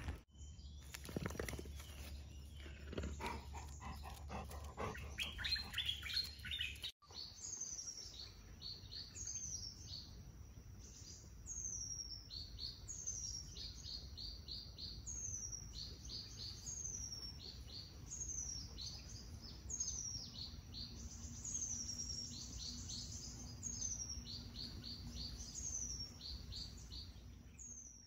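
A songbird repeating the same short phrase over and over, about every second and a half: a high note sliding downward followed by a quick run of short chirps. For the first seven seconds there is instead a low rumble with scattered other bird calls, cut off by a sudden break.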